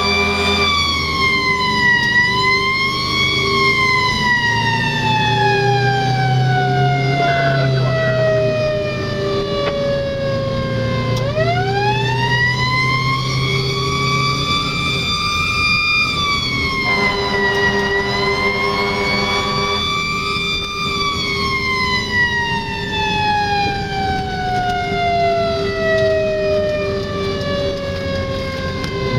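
Fire apparatus siren wailing: a long, slow fall in pitch, a quick rise about eleven seconds in, a held high note, then another slow fall over the last several seconds. The truck's engine runs underneath.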